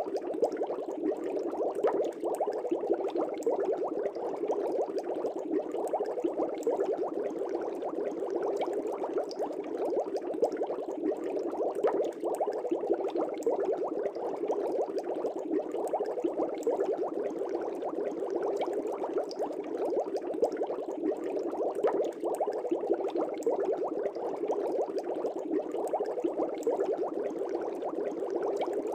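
Aquarium air bubbles rising and bursting in a fish tank: a steady, dense bubbling without let-up.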